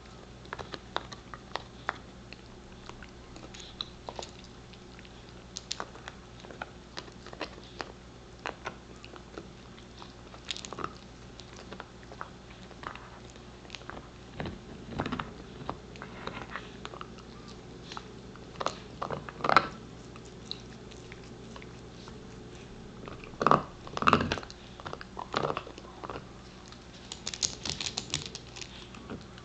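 Pembroke Welsh Corgi gnawing a deer antler base: irregular clicks and scrapes of teeth on the hard antler, with a run of louder bites about two-thirds of the way through.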